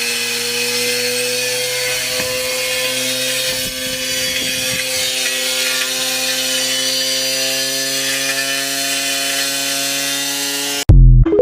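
Washing machine running with hard tools inside: a steady motor hum with a slowly wavering pitch over a coarse grinding, rubbing noise. Near the end it cuts off suddenly with a short, very loud bang.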